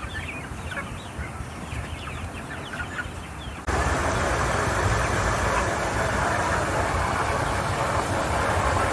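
Chickens clucking and chirping over a low rumble, then, a little under four seconds in, the sound cuts abruptly to a loud, steady rushing noise that covers them.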